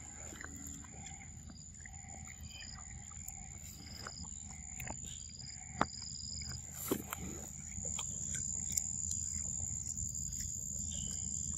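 Insects droning: a steady high-pitched buzz that grows louder about eight seconds in. Scattered sharp clicks are heard over it, the clearest about six and seven seconds in.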